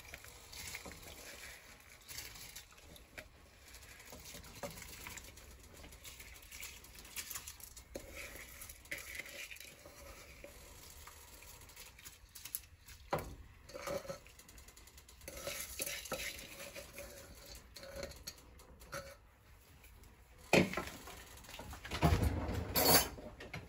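Soaked rice being tipped into a large pot of boiling spiced water and stirred: quiet, scattered clinks and scrapes of utensils against the pot, with a few louder knocks near the end.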